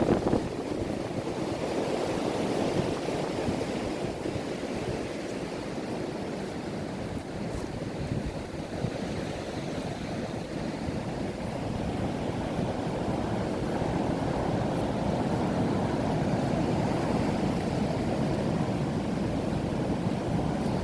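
Strong wind rushing and buffeting the microphone in uneven gusts, with a brief knock right at the start.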